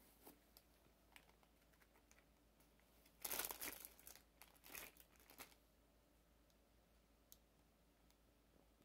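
Plastic candy wrappers crinkling and rustling as they are handled and unwrapped, in one louder stretch of about two seconds starting a little past three seconds in, with a few faint clicks around it.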